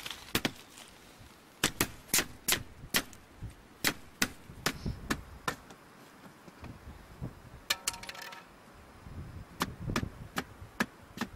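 A canoe being taken apart on the shore: a string of irregular sharp clicks and knocks from its frame parts being handled, with a brief creak about two-thirds of the way through.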